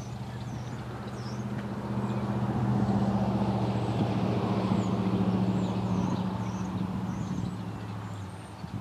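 A motor vehicle's engine humming steadily as it passes: the sound grows louder a couple of seconds in and fades away near the end. Small birds chirp high above it.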